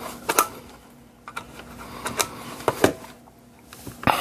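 Scattered sharp clicks and light taps from handling electronic test gear: multimeter test leads, plugs and switches. About seven separate clicks, with a faint steady hum underneath.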